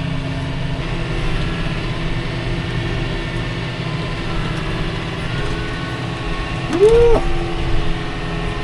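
Tractor engine running steadily under load while pushing chopped rye silage with a Leon dozer blade. About seven seconds in, a brief tone rises and falls in pitch, the loudest moment.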